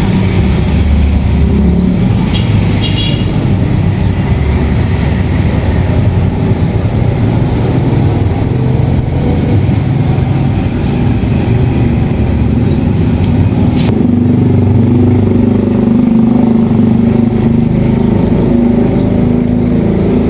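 A motor vehicle engine running steadily, with a few light clicks about two to three seconds in and a single sharp click near the end.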